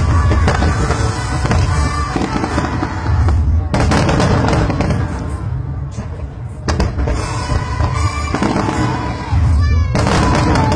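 Aerial fireworks bursting, with deep booms and sharp crackling cracks, two sudden loud bursts about four seconds in and near the end, over music and crowd voices.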